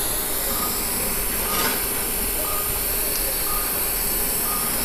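Operating-room patient monitor beeping in short, high beeps about once a second, keeping time with the pulse, over a steady hiss.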